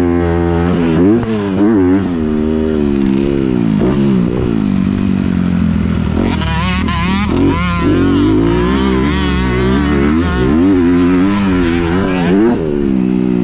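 Dirt bike engine heard from on the bike, revving up and down again and again as the rider works the throttle and gears around a motocross track; the revs climb highest about halfway through.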